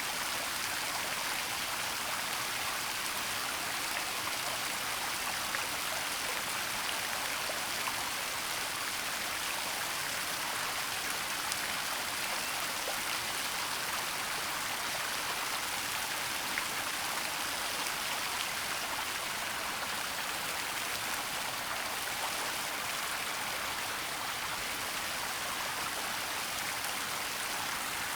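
Waterfall in a forest: a steady, even rush of falling water with fine splashing, unchanging throughout.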